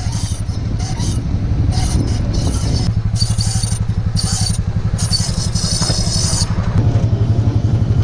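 Worn brake pads on a Honda Pioneer 500 squealing and scraping on and off as the wheel turns, over the steady low throb of its running engine; it stops about six and a half seconds in. The noise is the sign that the original pads are worn and due for replacement.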